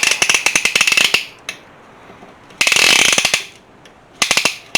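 Ratchet clicking rapidly in three bursts as the piston ring compressor is tightened around a compressor piston's rings.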